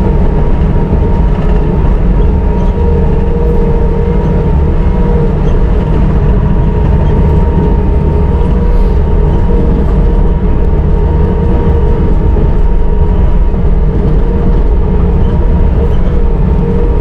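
Bobcat T650 compact track loader's diesel engine running steadily, with a steady whine over the low engine sound.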